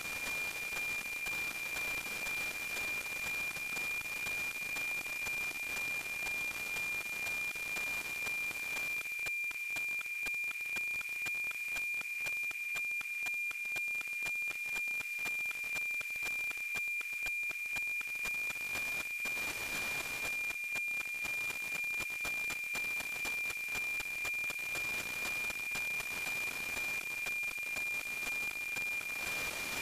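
NOAA-19 weather satellite's APT image signal, received on an RTL-SDR: a steady high-pitched tone over hiss, with the regular tick-tock of the image's line sync pulses.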